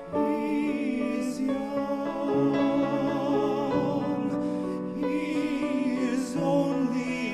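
Two male voices singing a slow ballad in harmony over piano accompaniment, holding long notes with vibrato.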